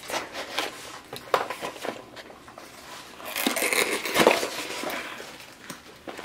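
A small cardboard mailer box being handled and opened by hand: scattered clicks and scrapes of cardboard, with a louder rasping stretch about three and a half to four and a half seconds in as the flap is pulled open.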